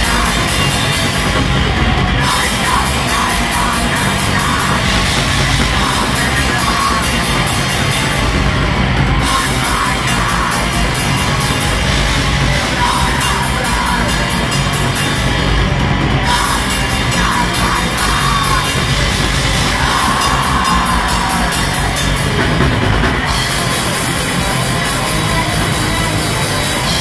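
A black metal band playing live and loud: distorted electric guitars and bass over fast drumming with cymbals, under a harsh screamed vocal.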